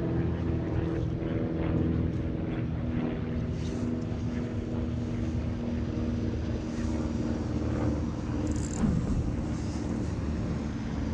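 Steady low engine hum with a constant drone, and a short click about nine seconds in.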